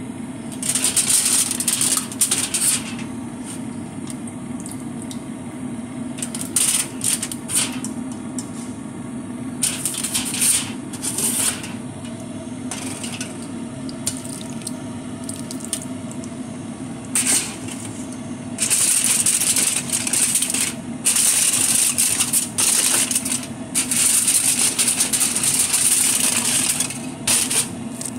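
Aluminium foil crinkling and rustling in repeated bursts as it is handled, the longest stretch in the second half. A steady low hum runs underneath.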